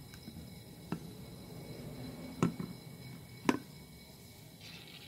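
Solid ebony wood blanks knocking as they are handled and set down on a concrete floor: three sharp knocks, then a brief hiss near the end.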